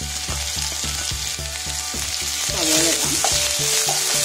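Freshly added sliced onions sizzling in hot sunflower oil in a frying pan, stirred with a wooden spatula. The sizzle grows louder a little past halfway through.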